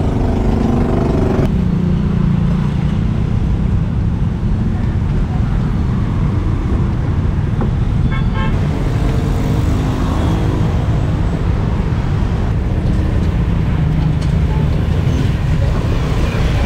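Steady street traffic, a low rumble of passing cars and motorbikes, with a brief horn toot of quick repeated beeps about halfway through.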